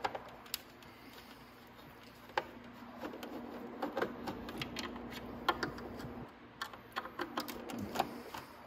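Hand screwdriver backing small screws out of a motorcycle's plastic side fairing: irregular light clicks and ticks of the screw turning and the fingers handling the screw and panel, over a faint steady hum.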